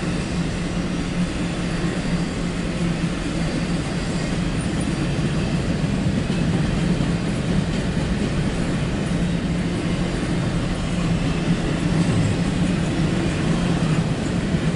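CSX intermodal freight train passing, its well cars' wheels running steadily over the rails, heard from inside a car.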